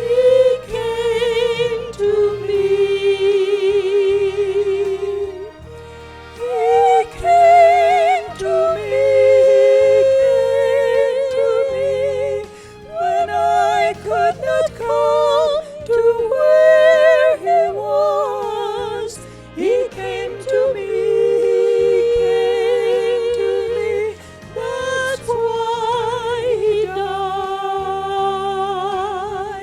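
Slow gospel music: a melody of long held notes with wide vibrato and a few sliding pitch changes, sung or played over soft accompaniment.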